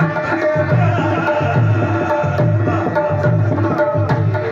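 Live folk music: a dholak drum playing a steady rhythm under held harmonium notes, with a man singing.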